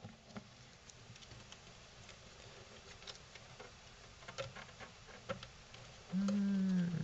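Light clicks and taps of hands handling and lifting the plastic housing of a Furuno FCV-585 fish finder. Near the end, a man's drawn-out hummed 'hmm'.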